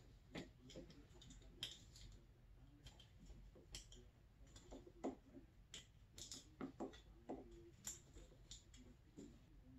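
Faint, scattered light clicks and rustles of hands fitting hoses and clamps on a snowmobile engine, at irregular intervals.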